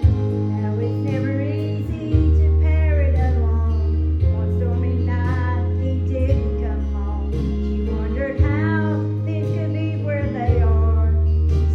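Solo singing of a gospel song over accompaniment, with held bass notes that change about every two seconds. The music swells louder right at the start.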